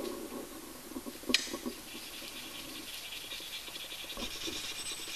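Wire wool scrubbing hard and fast against a stainless steel spoon, a rapid back-and-forth scratching that turns higher-pitched about two seconds in, with one sharp click. The rubbing works the coppering gel into the steel to plate it with copper.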